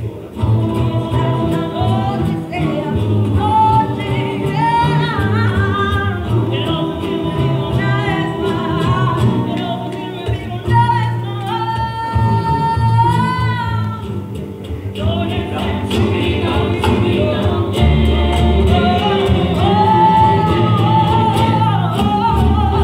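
A rondalla performing live: voices singing a melody over strummed acoustic guitars and a bass line.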